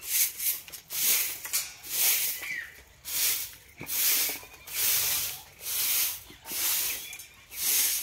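Short grass hand broom sweeping a dry earthen floor, in steady swishing strokes, a bit more than one a second.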